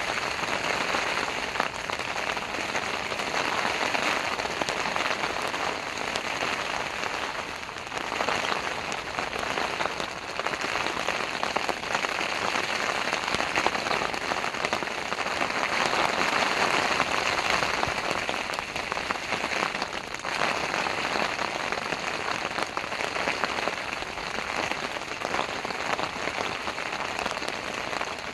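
Heavy rain falling on a dome tent's fabric: a dense, steady hiss of countless drop hits that swells and eases every few seconds.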